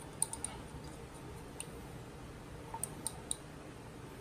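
Thin stirring rod clinking against the inside of a small glass jar as model paint is stirred: a few light clicks shortly after the start, then a handful more past the middle.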